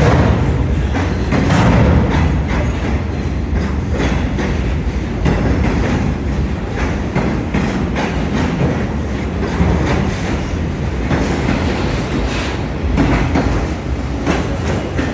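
Canadian National autorack freight train rolling past, its wheels clattering over the rail joints in a steady run of irregular clicks over a continuous rumble.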